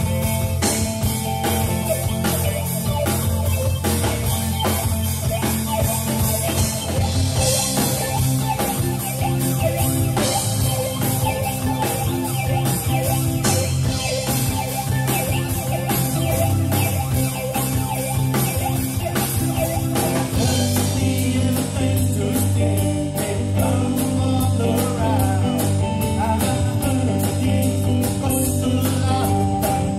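Live rock band playing: distorted electric guitar and bass over a drum kit with steady cymbal strokes. About two-thirds of the way through the drums and cymbals grow busier, and near the end a voice starts singing.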